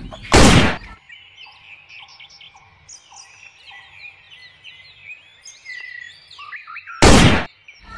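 Birds chirping, many short quick chirps, with two brief loud bursts of noise: one just after the start and one about a second before the end.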